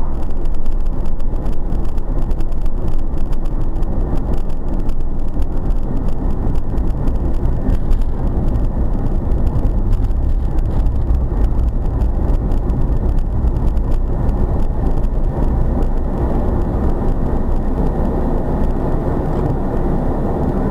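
Steady road and engine noise inside a moving car's cabin, recorded by a windscreen dashcam's microphone.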